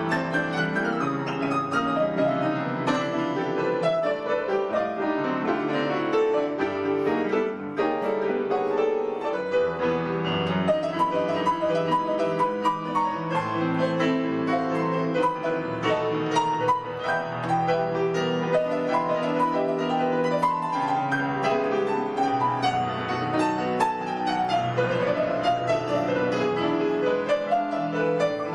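Piano playing a choro, with quick runs of melody over a chordal accompaniment.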